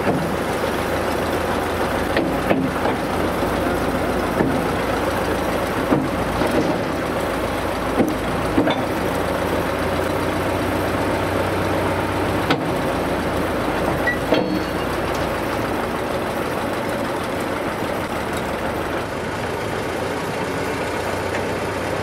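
Engine of a Bucyrus-Erie 15-B cable backhoe running steadily, with a few sharp metallic knocks every few seconds in the first part.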